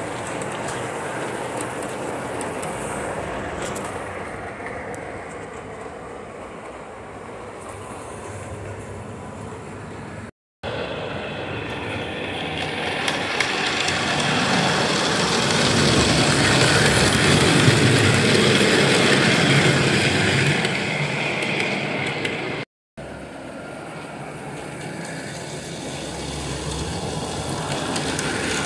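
Standard-gauge Camelback model steam locomotive and wooden cars running on three-rail metal track: a steady rolling rumble of wheels on rails. It grows louder as the train comes close to the microphone in the middle and again near the end, and the sound drops out briefly twice.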